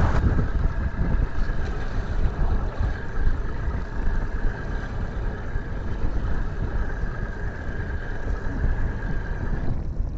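Fishing boat's outboard motor running under way with a steady whine, over a heavy rumble of wind and waves against the hull; the whine drops away near the end.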